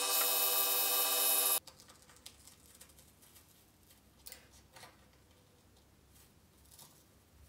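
Wood lathe running with a steady motor whine while sandpaper hisses against a small spinning turned wooden piece, cut off abruptly about a second and a half in. After that, faint scattered clicks and scratches of fingers pressing the small wooden model into a soft cuttlefish-bone mold.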